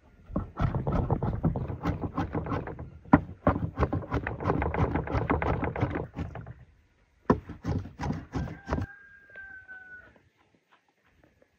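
Large curved cleaver chopping raw beef on a wooden cutting board: rapid repeated chops, several a second. The chopping pauses about six and a half seconds in, then comes a short run of a few more chops.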